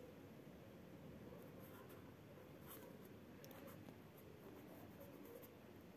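Faint scratching of a pen writing on workbook paper, in short strokes.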